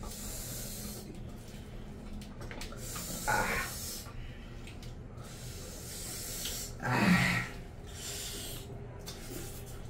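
Close-up eating sounds: hands squishing and mixing rice and curry on steel plates, with chewing. Two short breathy mouth sounds break through, one about three seconds in and a louder one about seven seconds in, as an eater puffs at the heat of the spicy food.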